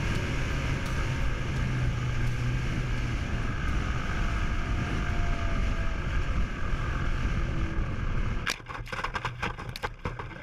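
Steady rush of strong wind and the motor and propeller of a Skywalker RC plane, heard through its onboard GoPro in flight. About eight and a half seconds in the steady noise drops away and a quick run of clicks and knocks follows.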